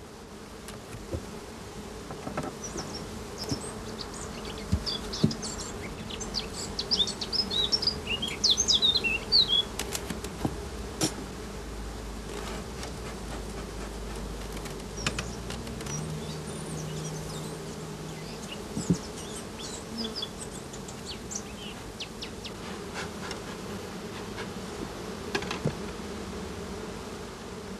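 Honeybees buzzing in a steady hum at the hives. A few short high chirps come through in the first third, with occasional light clicks.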